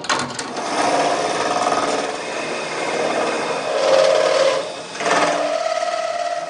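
A power tool working on metal, running steadily with a brief dip about five seconds in.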